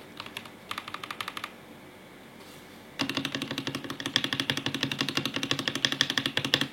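Typing on a Pressplay Rover 84 v3 mechanical keyboard with Gateron Yellow switches, a polycarbonate plate and case and plate foam. A short flurry of keystrokes comes about a second in, then a pause. From about halfway the typing turns into fast, continuous clacking that is louder than the first flurry.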